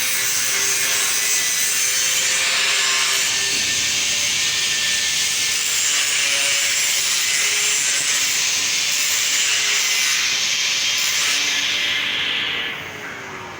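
Angle grinder grinding or sanding metal: a loud, steady abrasive hiss with the motor's whine underneath. Near the end the disc comes off the work and the motor's pitch falls as it winds down.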